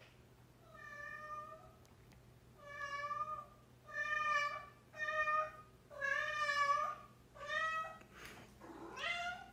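Domestic cat meowing repeatedly while carrying a toy in its mouth: about seven drawn-out calls, the last one rising in pitch.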